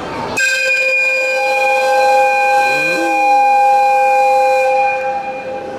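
EF55 1 electric locomotive's air whistle blown from the cab: one long, steady blast of several pitches sounding together. It starts abruptly about half a second in and stops near the end.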